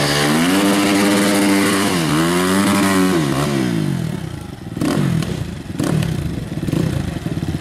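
Dirt bike engine revved hard in two long rising-and-falling surges while the bike is bogged in deep mud, then dropping to a low, pulsing run. Two short knocks come around the middle.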